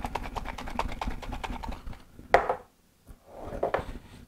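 Metal twist-off lid being screwed tight onto a glass jar: a rapid run of small clicks, then two louder knocks, the second about a second after the first, as the jar is handled and set down on the counter.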